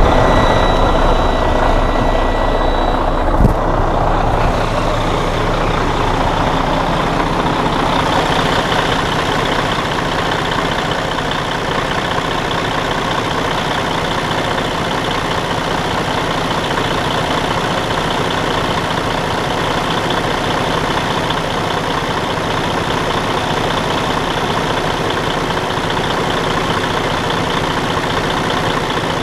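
Detroit Diesel DD13 inline-six diesel engine running after its out-of-time camshafts were replaced with a new cam housing and the valves were adjusted. It is a little louder for the first several seconds, gives one sharp knock about three and a half seconds in, then settles to a steady idle.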